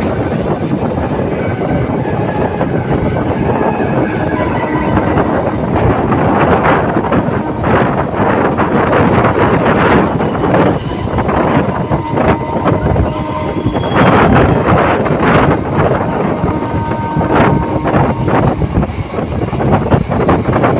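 Indian Railways electric multiple unit train running on the track: loud, steady rumble of steel wheels on rails, clattering over rail joints, with brief high-pitched wheel squeals about two-thirds of the way through and again near the end.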